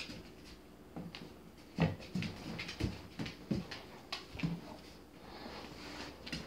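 A dog and a kitten scuffling in play on a hard floor: a string of soft thumps and taps, busiest in the middle.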